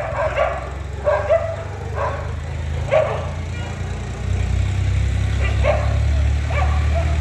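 Street dogs barking in short, irregular runs, about ten barks with a pause in the middle, over a low steady rumble that grows louder about halfway through.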